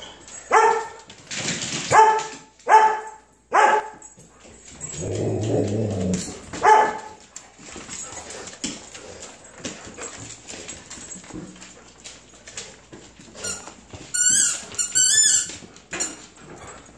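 Golden retrievers playing: five sharp barks in the first seven seconds, with a low growl about five seconds in. Clicks and scuffling follow, then a run of high-pitched whines near the end.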